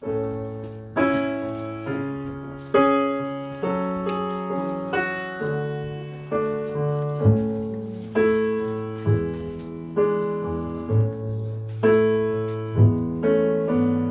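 Piano playing the opening bars of a song: chords struck every half second to a second, each ringing and fading before the next, over a moving bass line.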